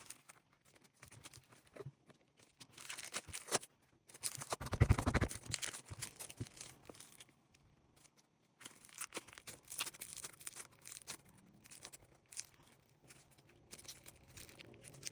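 Popcorn slime being squished and stretched by hand: irregular sticky crackling, clicks and pops, with a louder squelching burst about five seconds in.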